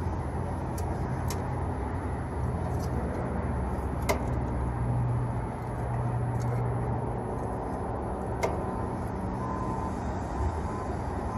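A steady low mechanical hum, with a few light clicks and taps.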